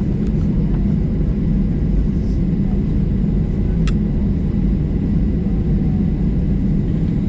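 Steady low drone of a Boeing 737-800's CFM56-7B engines heard inside the cabin, with a faint high tone above it. One short click about four seconds in.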